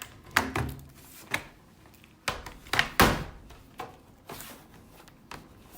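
Plastic bottom cover of an Asus FX504 laptop being pressed and snapped into place: a string of sharp clicks and knocks, the loudest about three seconds in.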